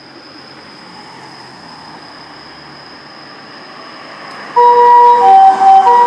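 Vehicle noise building slowly, then about four and a half seconds in an ambulance's electronic harmonic siren starts suddenly and loudly, alternating between two tones at a steady pace, each held for under a second.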